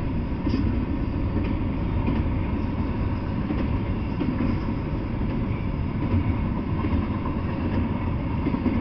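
Double-stacked container freight train rolling past, a steady low rumble of its wheels and cars on the rails.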